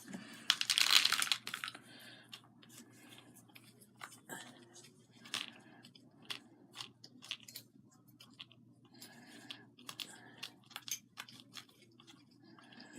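Hands handling small craft materials on a tabletop: a brief crinkling rustle about a second in, then scattered light clicks and taps as small pieces are picked up, bent and set in place.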